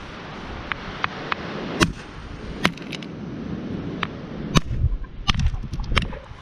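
A hammer striking hard pyritic nodules to split them open: a run of sharp, irregularly spaced cracks of metal on stone. The blows come quicker near the end. The nodules are pyritic and hard, so they take repeated hitting.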